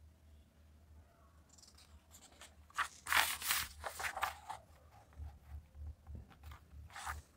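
Paper rustling as a hand turns a page of a printed exam question booklet, loudest about three seconds in, followed by a few lighter rustles of the pages being smoothed flat.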